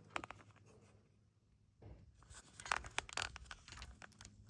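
Faint scratching and small clicks of electrical wire being handled and connected by hand, a few near the start and a denser run in the second half.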